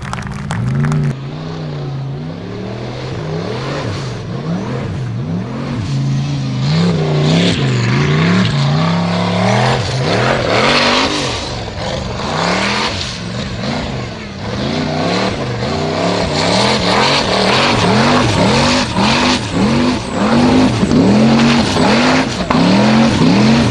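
Formula Offroad buggy's engine revving hard, its pitch rising and falling again and again as the throttle is worked. The swings are slower and uneven at first; in the second half they come about once a second.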